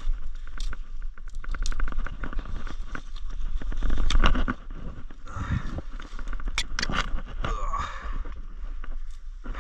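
Bypass loppers cutting through a sapling stem: the wood crunches and cracks, loudest about four seconds in, then there is rustling of leaves and brush. Low wind rumble on the microphone.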